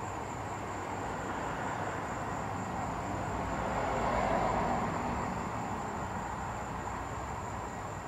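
Distant vehicle rumble that swells to a peak about halfway through and fades again, over a steady thin high-pitched tone.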